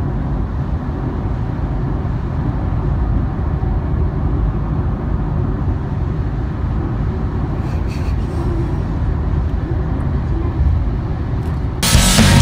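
Steady low road and tyre rumble inside the cabin of a 2017 Honda Freed+ hybrid driving at highway speed. Loud rock music cuts in just before the end.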